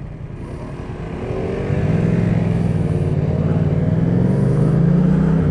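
Motorcycle engine pulling away from a standstill and accelerating, getting steadily louder from about a second in.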